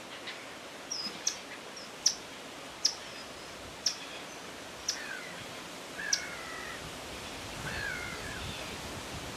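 Common kingfisher calling: a string of short, sharp, high-pitched whistles, roughly one a second, in the first two-thirds. Quieter, lower falling bird notes come in later.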